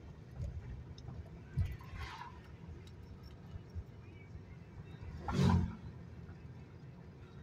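Steady low road and engine rumble inside the cab of a moving pickup truck, with a few small clicks and one brief louder rush of noise about five seconds in.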